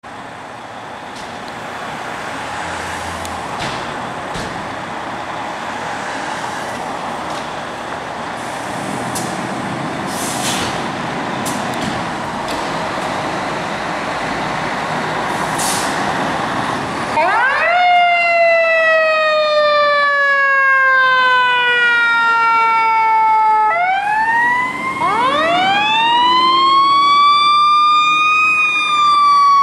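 Fire apparatus engines running in the firehouse, the rumble building steadily. A bit past halfway a fire truck's siren winds up quickly in pitch and slowly falls away, then winds up and falls again near the end as the ladder truck pulls out to respond.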